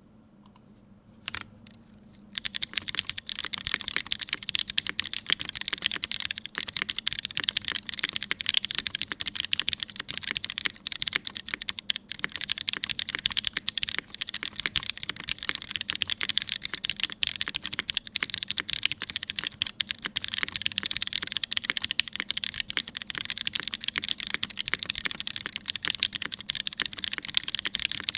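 Continuous fast typing on a Keycult No.1 TKL mechanical keyboard with Cherry MX Brown switches, lubed with Krytox 205g0 and filmed, on an aluminium plate with GMK keycaps. A single click comes just over a second in, and the steady stream of keystrokes starts about two seconds in.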